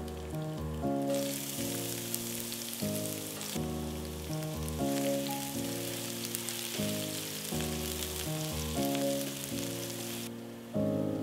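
Chopped onions and garlic cloves sizzling in hot oil in a nonstick frying pan. The sizzle starts about a second in, just after the onions go in, and cuts off sharply near the end. Background music with a melody plays throughout.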